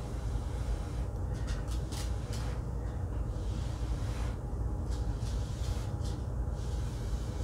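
Breath blown through a drinking straw onto wet acrylic pour paint, in a few airy puffs of a second or so each, over a steady low hum.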